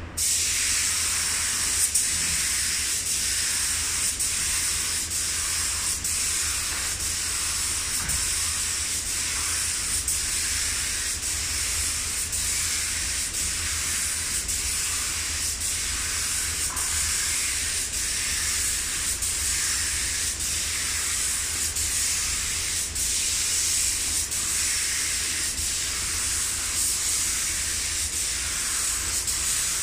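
Hose-fed compressed-air paint spray gun spraying primer onto a helicopter fuselage: a steady high hiss that starts abruptly as the trigger is pulled.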